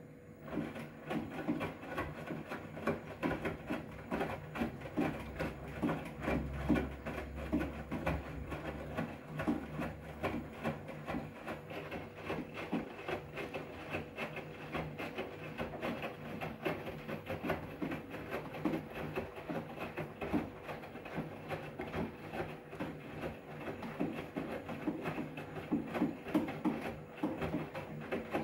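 Front-loading washing machine turning its drum in a wash tumble: wet towels and water sloshing and flopping over a steady motor hum. It starts up and stops suddenly near the end.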